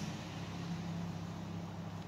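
Steady low hum of a vehicle engine running in the street, heard through the kitchen.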